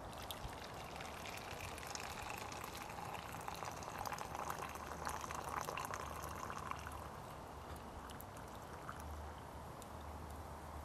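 Water poured from a small camping kettle into a metal mug, the trickle rising a little in pitch as the mug fills and fading out about seven seconds in.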